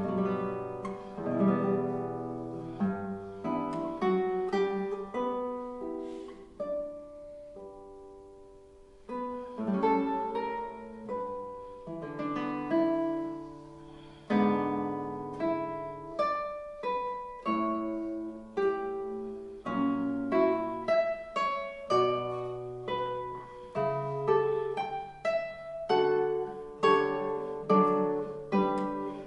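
Solo classical guitar playing a classical piece, with plucked single notes and chords that ring out and decay. It thins to a few soft held notes about seven to nine seconds in, then picks up again louder.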